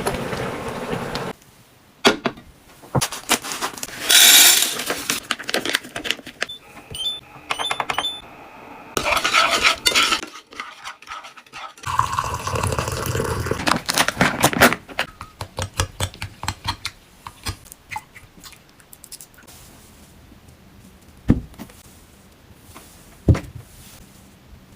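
Irregular clattering and clinking of handled objects, like dishes and utensils, with several longer noisy stretches in the first half and a few sharp knocks near the end.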